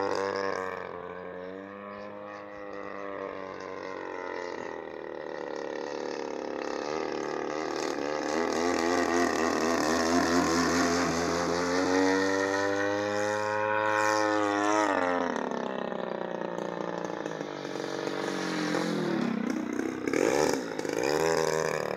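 DLE 61 two-stroke petrol engine of a 2.2 m GB-models Yak-55M aerobatic model plane running in flight, its pitch rising and falling as it throttles and sweeps past. It is loudest around the middle, with a quick dip and rise in pitch near the end.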